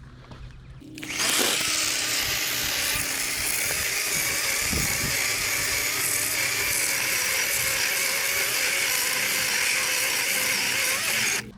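Worx WG384 40-volt cordless electric chainsaw with an 18-inch bar cutting into a fallen log. The saw starts about a second in, runs at a steady pitch for about ten seconds, then stops abruptly.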